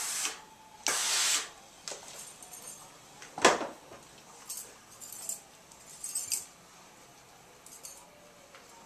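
Rowenta steam-station iron giving two short hisses of steam near the start. About three and a half seconds in comes a sharp knock, the loudest sound, followed by a few faint clinks and rustles.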